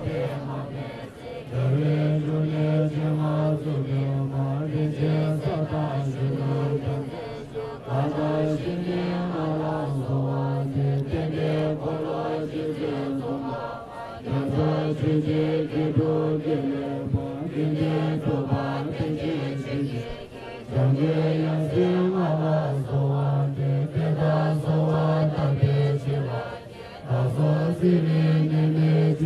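Tibetan Buddhist prayers chanted in unison by a group of voices, low and nearly monotone on a few held notes. The chant runs in long phrases with a brief pause for breath about every six or seven seconds.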